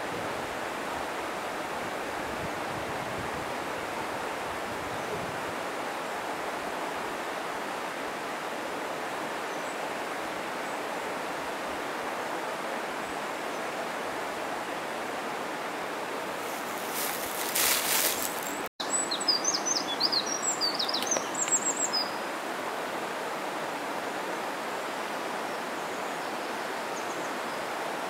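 Mountain stream water rushing steadily. About two-thirds of the way in comes a brief high hiss and a sudden break, followed by a few seconds of small bird chirps.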